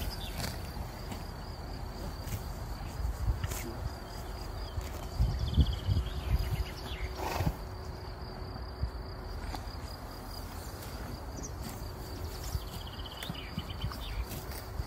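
Horses grazing, cropping and chewing grass close by in irregular low rustles and thuds, busiest about a third of the way in. Behind it, insects chirp with a steady high thin tone and a few short trills near the end.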